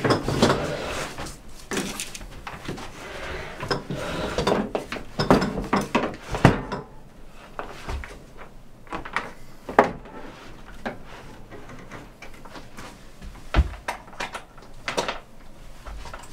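A small freezer being handled and shifted: irregular knocks, bumps and scrapes of its lid and cabinet, busiest in the first half and sparser later.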